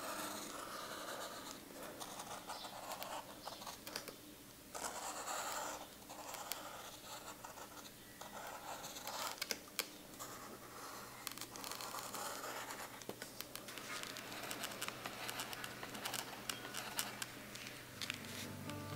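Coloured pencil scratching across sketchbook paper in short, uneven strokes as a design is drawn.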